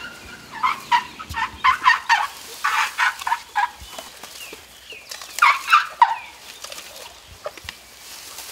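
Asian elephant calves squeaking in quick runs of short, high chirps, the calls young elephants make when greeting one another. One long flurry runs from just under a second in to nearly four seconds, and a shorter one comes around five and a half seconds.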